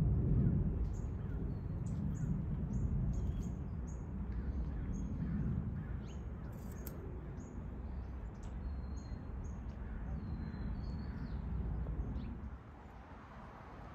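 Birds chirping: short high calls about twice a second, with a few brief whistled notes. Under them is a louder low rumble that drops away near the end.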